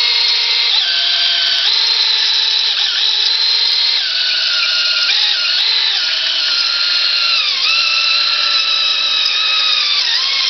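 Ryobi cordless drill spinning a cylinder hone in and out of an engine cylinder bore. Its motor whine is steady in loudness but shifts up and down in pitch several times as the speed and load change, dipping about three quarters of the way through and again near the end.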